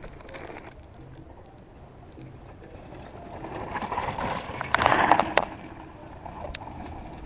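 A downhill mountain bike passes close by on a loose dirt and gravel trail. The tyres crunch and the bike rattles, building to a peak about five seconds in with a few sharp clicks, then fading as it goes past.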